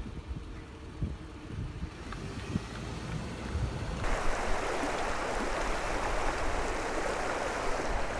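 Low rumble of a slow-moving car, with a few soft thumps. About four seconds in it cuts to the steady rush of a shallow river flowing over rocks.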